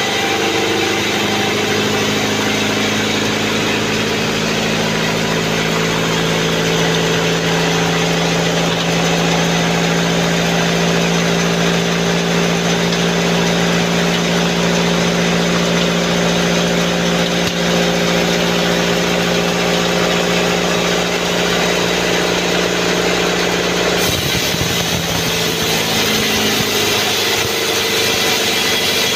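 Sawmill bandsaw and its drive engine running steadily with a constant hum. About 24 seconds in, the pitch drops and wavers and a louder hiss comes up.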